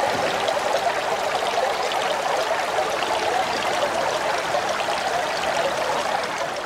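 Steady rush of gushing, splashing water, like a jet of water spouting up from the sea, easing off slightly near the end.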